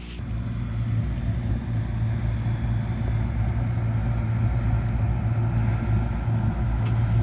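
Car driving on a snowy road, heard from inside the cabin: a steady low engine and road rumble.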